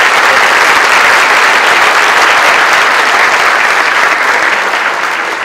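Audience applauding, dense and steady, beginning to die away near the end.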